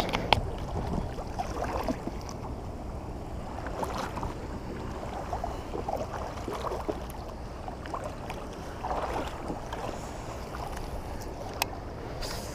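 Water sloshing and splashing around a kayak being moved through shallow river water, with scattered light knocks and one sharp click near the end.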